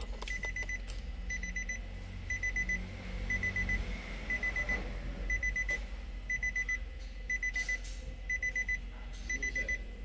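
Electronic warning beeper sounding short high beeps in quick groups of four, one group about every second, repeating steadily.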